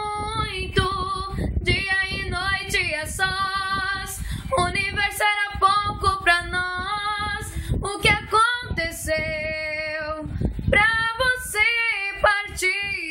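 A young woman singing a slow Portuguese love song alone, with no accompaniment, holding long wavering notes between short breaths.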